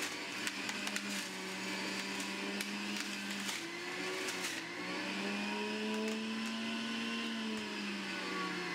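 Breville centrifugal juicer running while juicing apple pieces: a steady motor whine that sags in pitch around the middle and climbs back, with scattered clicks in the first half.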